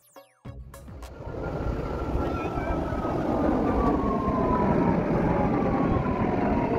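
Twin-engine widebody jet airliner flying low overhead. The engine noise swells over the first few seconds and stays loud, with a high whine that falls slowly in pitch as the jet passes.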